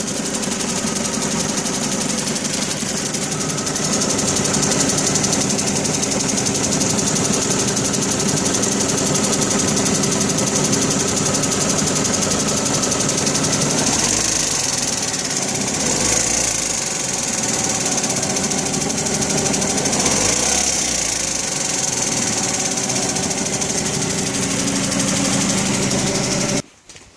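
2005 Dodge Neon's four-cylinder engine running steadily with a ticking noise, which the owner places low on the driver's side under the battery and suspects is a sticking lifter, a blown exhaust manifold gasket or a broken manifold bolt after a head gasket job. The sound cuts off suddenly near the end.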